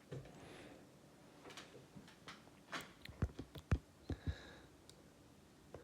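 Light clicks and taps of small metal parts being handled: the just-opened deadbolt rim cylinder and the pick and tension wrench, with a cluster of sharp taps about three to four seconds in.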